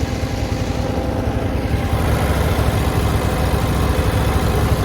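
Old Husqvarna lawnmower's small engine idling steadily, a little high, after a cold start. It gets slightly louder about two seconds in.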